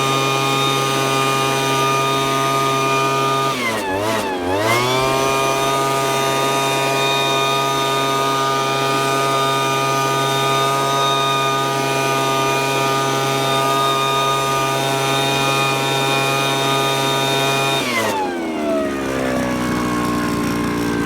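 Zenoah HB2302 leaf blower's small two-stroke engine running at high revs after the replacement of its crankshaft needle bearing. The revs briefly dip and recover about four seconds in, hold steady, then fall away toward idle near the end.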